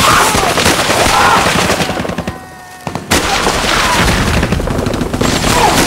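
Rapid machine-gun fire in a battle sound mix, with a short lull a little past halfway before the firing starts again.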